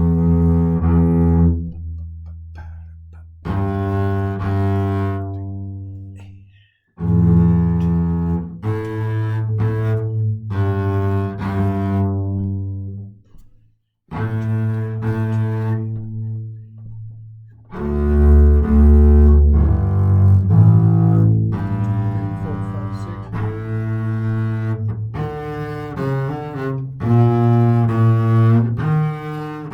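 A bowed double bass playing the bass part of a slow orchestral piece, in sustained low notes phrase by phrase, with short breaks about 7, 14 and 17 seconds in.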